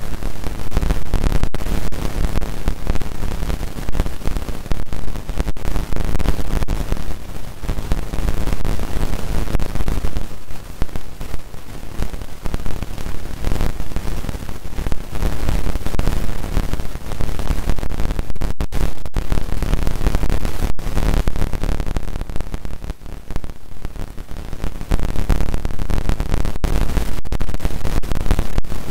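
Loud arena crowd noise, cheering and shouting blurred into a dense, distorted wash with no clear voices.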